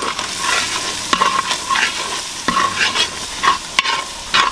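Metal spatula stirring and scraping onions and spices frying in hot oil in a large metal pan: steady sizzling, with swishing scrapes and a few sharp clinks of the spatula against the pan.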